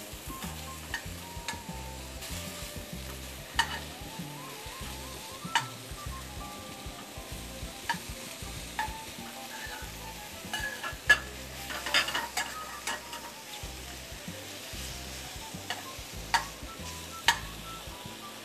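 Boletus mushrooms sizzling in olive oil in a hot frying pan, with a steady hiss while a utensil stirs and turns them. Sharp clicks and taps of the utensil against the pan come every second or two, the loudest about eleven seconds in.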